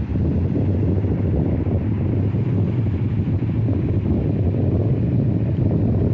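Sea waves washing, with wind on the microphone: a steady low, deep wash of noise that swells up at the start and holds.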